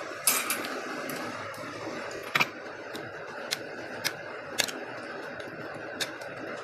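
Metal spoon and fork clinking against the bowl while stirring chili sambal into bakso soup: a series of sharp, irregularly spaced clinks over a steady background hiss.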